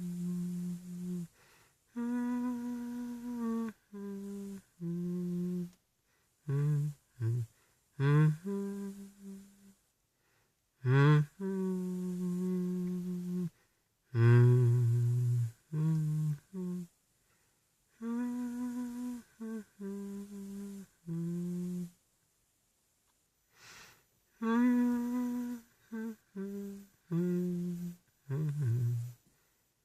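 A man humming a slow melody without words: held, sliding notes in phrases with short breaks between them.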